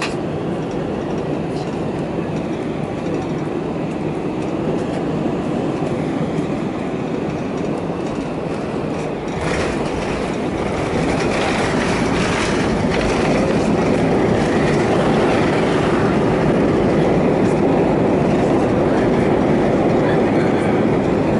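Airliner cabin noise as the plane rolls on the ground: a steady rumble with a rattling clatter, growing louder about ten seconds in.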